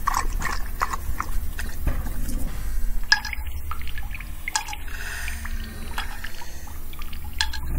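A Weimaraner lapping water from a bowl: quick, irregular wet laps and splashes, over a steady low hum.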